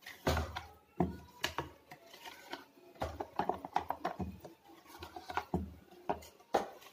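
Silicone spatula scraping and stirring thick, freshly ground rice batter in a stainless steel vessel: irregular wet scrapes and soft knocks against the metal.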